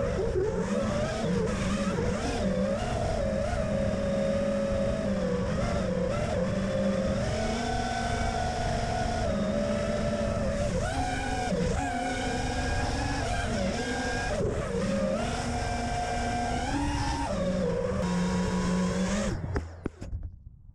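FPV quadcopter's Emax RS2205 brushless motors and propellers whining in flight, the pitch rising and falling as the throttle changes. The whine cuts off near the end as the quad comes down and stops.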